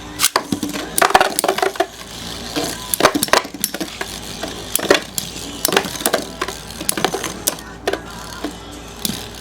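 Two Beyblade spinning tops, Lightning L-Drago 100HF and Rock Leone 145WB, clashing as they spin in a stadium. Their metal fusion wheels make irregular sharp clacks, some single and some in quick flurries, with a dense run of hits about a second in.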